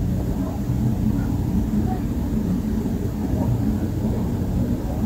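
A steady low rumble, with faint, indistinct voice-like sounds above it.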